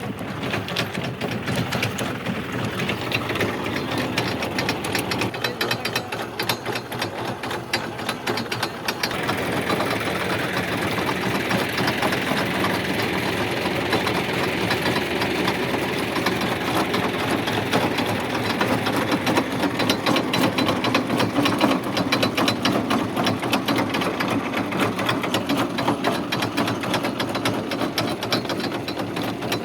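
Potato harvesting machine running: engine noise under a fast, steady mechanical rattle, a little louder from about nine seconds in.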